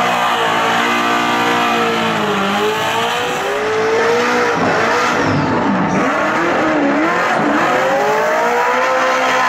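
LS1 V8 in a 1950 International tow truck running at high revs through a burnout, its pitch dipping and climbing again several times, over the hiss of the spinning tyres.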